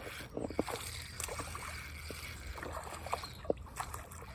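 Small, irregular water splashes and sloshing from a small bass hooked on an ultralight rod as it is fought toward the bank.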